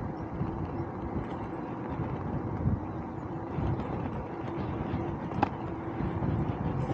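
Steady rolling rumble of a bicycle ride: tyres running on the road surface, with a faint steady hum and a single sharp click about five and a half seconds in.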